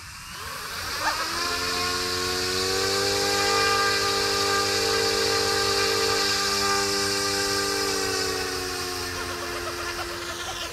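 Electric motor and rotor blades of a YXZNRC F09 Black Hawk RC helicopter spooling up on the ground: a whine rises in pitch for about two seconds, then holds steady over a rotor hiss, sagging slightly near the end.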